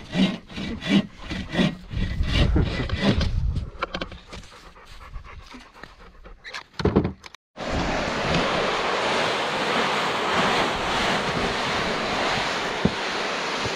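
Hand saw cutting dry wood in quick, regular strokes, about two or three a second, fading out after about three seconds. After a break, a steady rushing noise.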